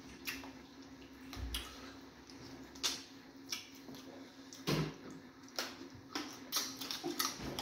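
Eating sounds: irregular wet mouth smacks and chewing clicks as fufu and egusi soup are eaten by hand, with fingers squishing the food, over a steady low hum.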